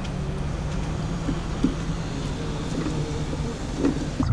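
Steady low rumble of a moving motor vehicle: engine drone and travel noise, with a few light knocks.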